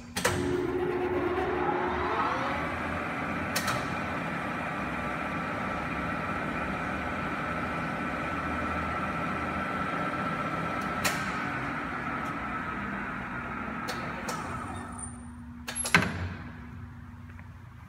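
A 1997 Kingston HD-22160 gear-head lathe starts its spindle with a click. The headstock gear whine rises in pitch over about two seconds, then runs steadily. It winds down about fifteen seconds in, with a sharp clunk near the end as the spindle stops.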